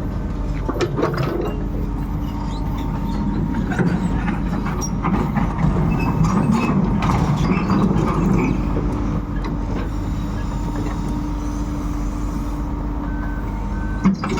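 Komatsu PC200-8 excavator's diesel engine running steadily while its steel tracks and undercarriage clank and creak as it is driven down during unloading.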